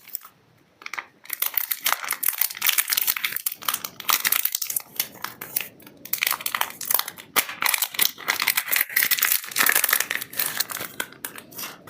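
Soap packaging crinkling and rustling as it is unwrapped by hand: a dense run of crackly rustles and small clicks that starts about a second in.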